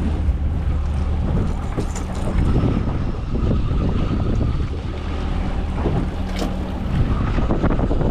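A fishing boat's motor running steadily, with wind buffeting the microphone and a few short knocks.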